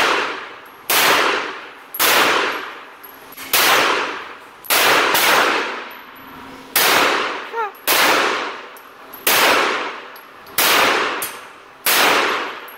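Springfield XD 9mm pistol fired about a dozen times at an uneven pace of roughly one shot a second, each shot echoing at length off the walls of an indoor range.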